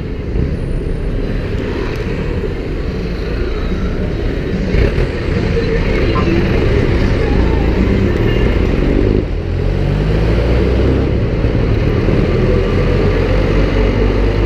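City street traffic: car and motorcycle engines running close by in a steady wash of road noise, with engine pitch rising in the second half as vehicles pull away.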